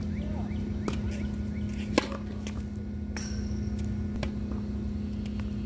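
Tennis balls being struck by rackets and bouncing on a hard court: sharp pops about a second apart, the loudest about two seconds in, over a steady low hum.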